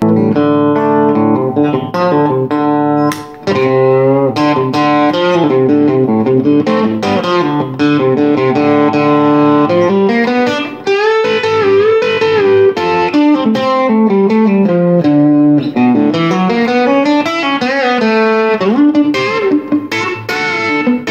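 Electric guitar solo played on a Telecaster through an unmodded Boss DS-1 distortion pedal into a small Fender tube amp. It is a continuous run of single notes with several string bends.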